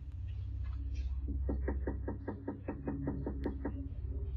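Rapid knocking on a front door, about fourteen quick raps at roughly six a second, picked up by a doorbell camera's microphone over a steady low hum.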